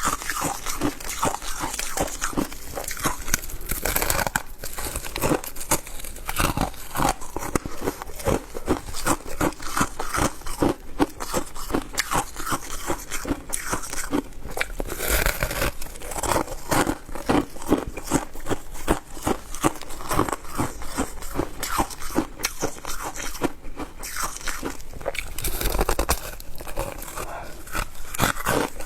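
A person chewing shaved ice: a continuous run of quick, crisp crunches, several a second.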